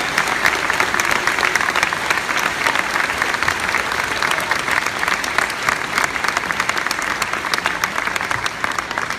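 A large audience applauding: dense, steady clapping from many hands that begins to ease off near the end.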